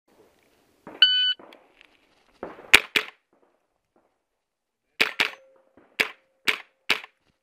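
Electronic shot-timer start beep, then seven rifle shots from a semi-automatic AR-style carbine: a quick pair nearly three seconds in, another quick pair about five seconds in, then three single shots about half a second apart.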